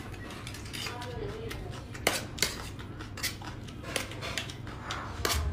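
Metal spoon clinking and scraping against a small metal pan of food, with several sharp clinks from about two seconds in.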